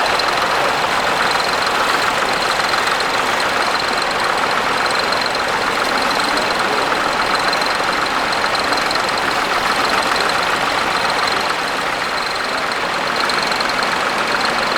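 Tractor engine running steadily, with a thin high whine above it.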